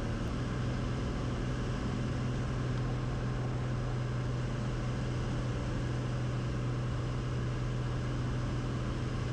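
Steady drone of a Cessna 180's Continental O-470 six-cylinder engine and propeller in flight, an even low hum with air noise over it.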